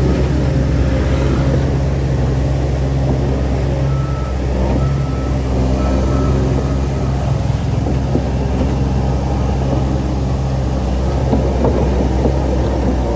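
Heavy diesel engine of earthmoving machinery running steadily under load, with three short reversing-alarm beeps about four to seven seconds in.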